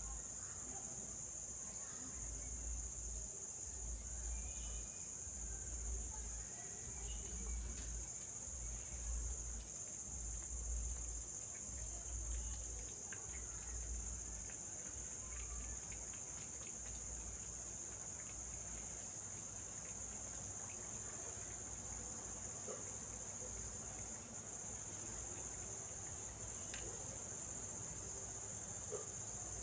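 Insects chirring in a steady high-pitched drone, with a low rumble throbbing on and off about once a second through the first half.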